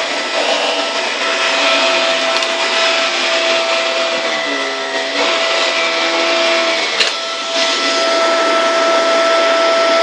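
Dyson DC24 upright vacuum cleaner running steadily, its motor whine held at one pitch, with a sharp click about seven seconds in.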